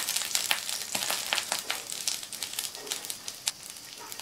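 Paniyaram batter frying in hot ghee in a paniyaram pan: a steady sizzle with many small sharp crackles, as the balls are turned over with a spoon.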